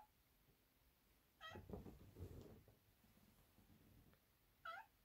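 An animal's short, high-pitched call, twice: once about a second and a half in and again near the end, with soft low noise after the first.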